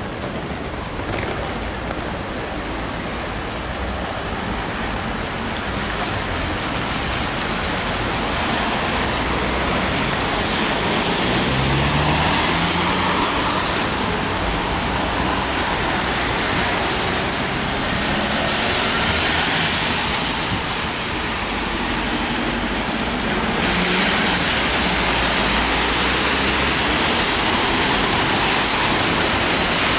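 Traffic on a rain-wet city street: a steady hiss of tyres on wet road over a low engine hum, swelling as vehicles pass, most strongly about two-thirds of the way in and again near the end.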